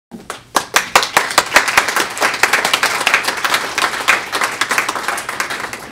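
Audience applauding: many hands clapping, starting abruptly and thinning out near the end.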